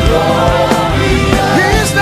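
Gospel worship music: voices singing over a live band with a steady beat.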